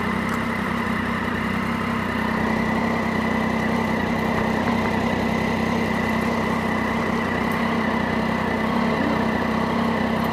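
Triumph Daytona 675's three-cylinder engine idling steadily while the motorcycle stands still, with no revving.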